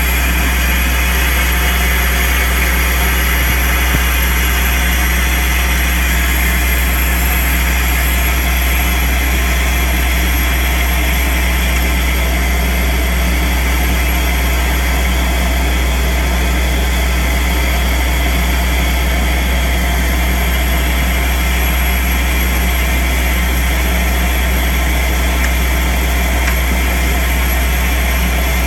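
Compact soil-vacuum machine running steadily at full suction, drawing soil up a rigid suction tube and corrugated hose: a loud constant drone with a rush of air that does not change.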